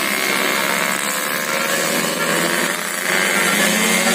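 Diesel bus engine running as the bus passes close, a steady mechanical drone that gets louder about three seconds in.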